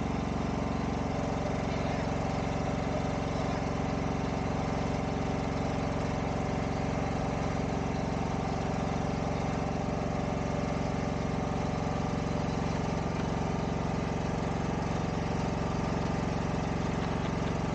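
Boat engine running steadily at a constant speed, its note shifting slightly about a second in.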